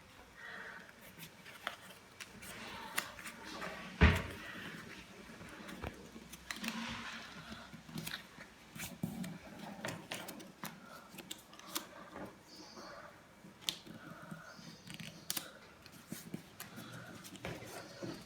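Craft paper being folded and creased by hand: rustling and crinkling with scattered small taps, and one loud knock about four seconds in.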